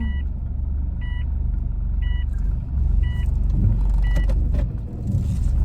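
Car engine rumbling steadily, heard from inside the cabin, with a short two-tone electronic warning beep repeating about once a second, five times, then stopping.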